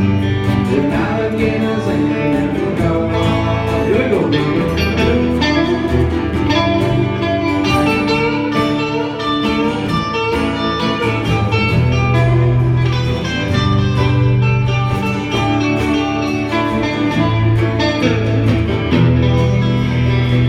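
Country band playing an instrumental break, led by guitar over a steady bass line.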